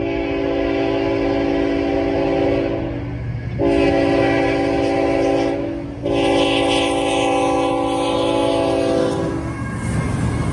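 Norfolk Southern diesel locomotive's air horn sounding for the grade crossing in three held blasts, the last ending just as the lead locomotive reaches the crossing. After that comes the rumble of the locomotives passing.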